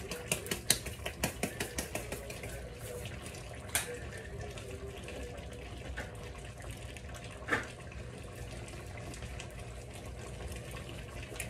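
Seasoning being shaken out of a shaker bottle over a pot, a quick run of taps about four a second that stops about two seconds in. Under it the curry chicken simmers in the pot with a steady bubbling, broken by two single knocks.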